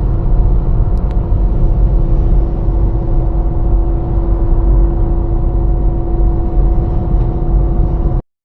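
Strong wind buffeting a car, with a deep, dense rumble and a steady droning tone over it. It cuts off suddenly near the end.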